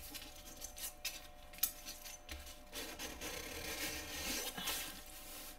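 Hands rubbing and smoothing a creased diamond painting canvas flat on a table, a faint intermittent rustling and scratching.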